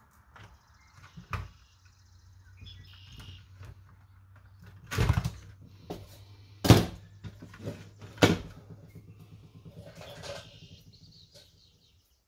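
Wire crimper and small tools being handled on a work table during wiring: scattered clicks and a few sharp knocks, the three loudest about five, six and a half and eight seconds in, over a low steady hum.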